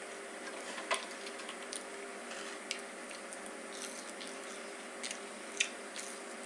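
A person chewing food close to the microphone: scattered wet mouth clicks and crunches over a steady low hiss.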